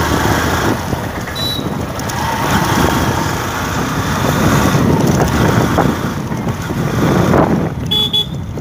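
Motorcycle running steadily at riding speed over a rough brick-paved road, engine and road noise mixed together.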